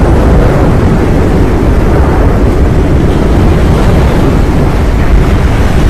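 The erupting Cumbre Vieja volcano on La Palma giving off a loud, steady, low roar.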